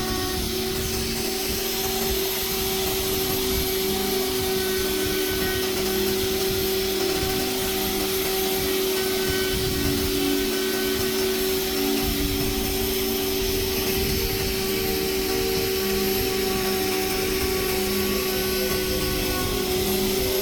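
A workshop machine running steadily: a continuous motor hum with a steady hiss over it.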